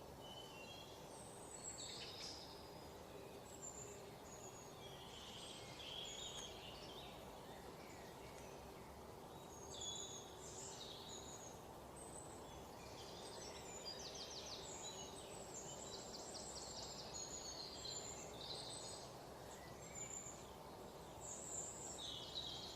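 Small birds chirping and twittering, many short high calls with a few quick trills, over a faint steady background hiss.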